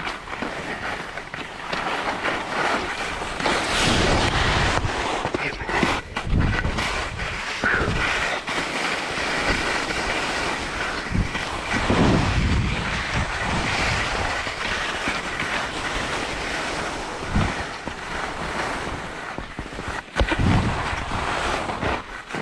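Skis hissing and scraping over packed snow on a downhill run, with wind rumbling on the GoPro's microphone in several gusts.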